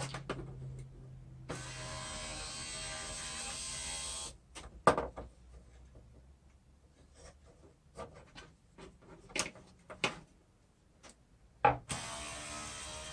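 Electric window regulator motor from a second-gen Acura TSX, freshly cleaned and regreased, running steadily for about three seconds, then a sharp knock and a few clicks and knocks, and running again near the end. The motor and gearbox run freely now that hardened grease and dirt that had locked them up are gone.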